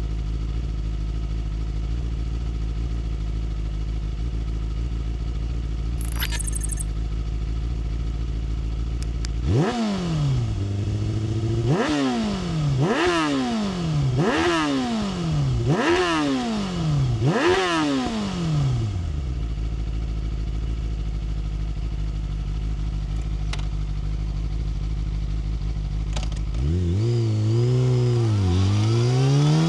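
Yamaha R6 inline-four sport-bike engine idling, then revved in about six quick sharp blips that each fall back toward idle, then idling again. Near the end the engine note rises and falls and then climbs as the bike pulls away.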